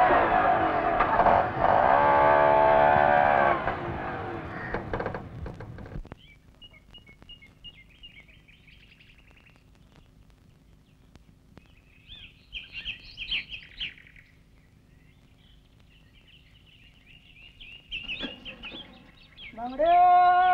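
Auto-rickshaw engine running loudly and fading away over the first few seconds. Birds then chirp in short, scattered calls over quiet, and a woman's voice rises into a sung note just before the end.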